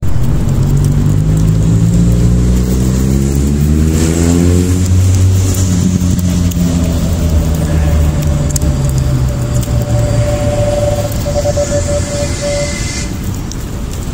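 A vehicle engine running, its pitch rising over the first four seconds or so, then holding steady as a low hum that slowly fades.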